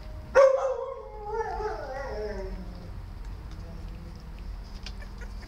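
A dog gives one loud yelp about half a second in that trails off into a wavering, falling whine lasting about two seconds.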